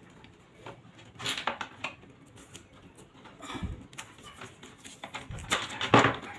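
Electrical wire and a metal outlet box being handled, giving scattered light clicks, rattles and rustles, with a sharper clack near the end.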